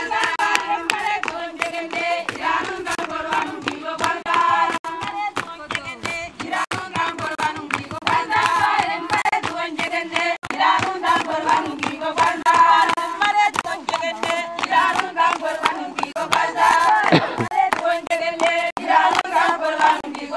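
A group of women singing together and clapping their hands.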